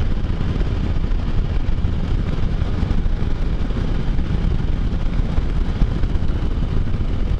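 Steady wind rumble on the microphone mixed with the engine and road noise of a Can-Am Spyder three-wheeled motorcycle riding at a constant speed.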